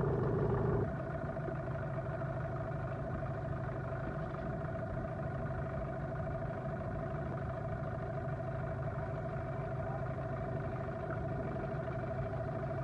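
An engine running at a steady speed, an even drone throughout, with a brief louder noise in the first second.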